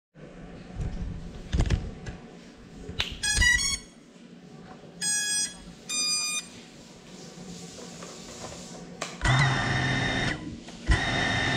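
Small drone powering up: a quick run of electronic beep tones, then two single beeps, then two whirring bursts of about a second each from its motors. A couple of low knocks come in the first four seconds.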